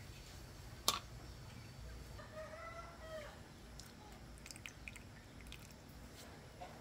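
A rooster crowing once, faint, about two seconds in, one slightly arched call lasting about a second. A sharp click about a second in and a few light clicks later.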